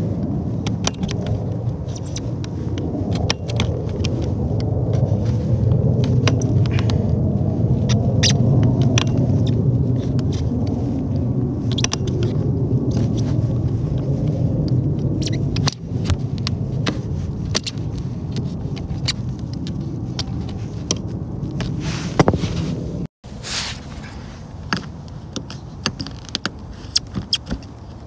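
A utility knife blade cutting and scraping old sealant around an RV roof skylight flange: scattered scratchy clicks over a steady low rumble. The rumble drops after a sudden break near the end, leaving the scraping clearer.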